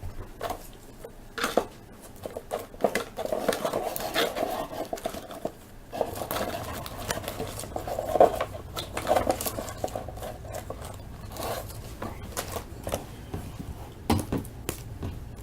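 Trading cards and hard plastic card holders being handled: scattered clicks and clacks, with a stretch of denser rustling from a few seconds in until about two-thirds of the way through.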